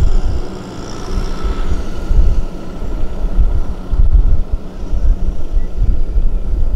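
A farm machine's engine running steadily under heavy wind buffeting on the microphone.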